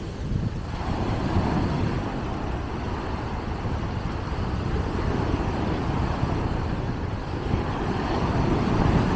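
Sea surf breaking and washing up a sandy beach: a continuous rushing noise that swells louder near the end as a wave breaks.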